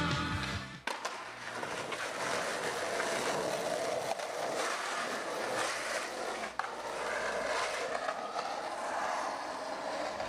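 Skateboard wheels rolling on rough street pavement, a steady gritty rumble, with a sharp clack of the board about a second in and another about six and a half seconds in.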